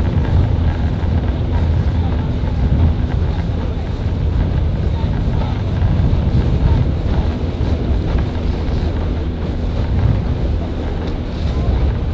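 Strong wind buffeting the microphone as a steady low rumble, over the steady drone of a motor launch's outboard engine running alongside the rowing crews.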